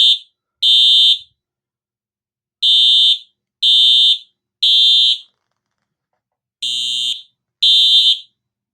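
Simplex TrueAlert ES 49AO-WRF fire alarm horn sounding in the temporal-3 evacuation pattern: very loud, high-pitched beeps of about half a second each, in groups of three with a longer pause between groups. The last group stops after its second beep, near the end.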